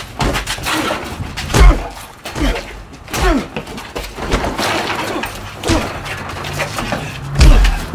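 Fight-scene punches and body impacts: a run of heavy thuds, the loudest about one and a half seconds in and near the end, with short falling-pitch sounds between them.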